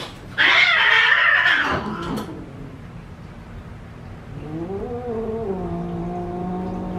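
A cat gives a loud, harsh cry lasting about two seconds. From about four seconds in comes a long, low yowl that rises briefly and then holds steady, the sound of a cat warning off another cat.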